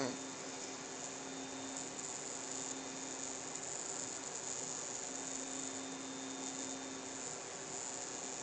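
Room tone: a steady hiss with a faint, even electrical hum and no distinct sounds.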